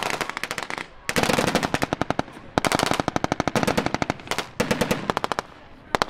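Rapid automatic gunfire from military automatic weapons firing blanks. It comes in four long bursts of quick, closely spaced shots, with brief pauses between them.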